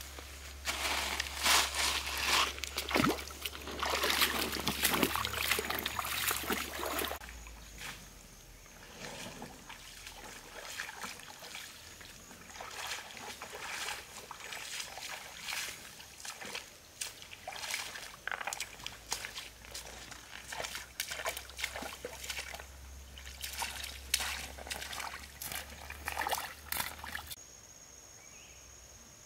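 Footsteps wading through a shallow stream, water splashing and sloshing with each step, loudest for the first seven seconds and then softer and more spaced. Near the end the splashing stops and a faint steady background with a thin high tone remains.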